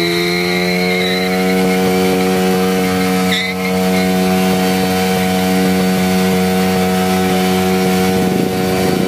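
A motorcycle engine held at steady high revs, an even, hard buzz, wavering slightly near the end. A short click sounds about three and a half seconds in.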